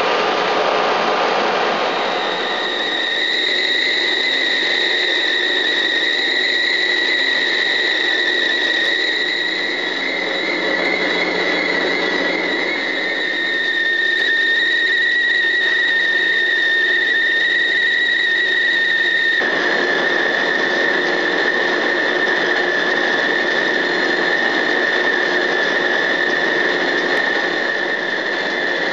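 Bullard heavy-duty CNC vertical turning machine running, giving off a steady high-pitched whine over a broad mechanical hum. The lower noise changes abruptly about two-thirds of the way through while the whine carries on.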